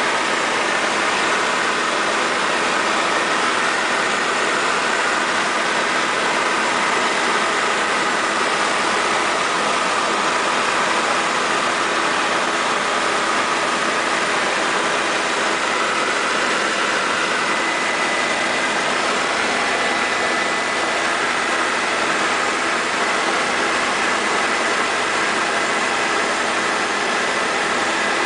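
Helicopter in flight heard from inside the cabin: a steady drone of engine and rotor, with a faint steady high whine over it.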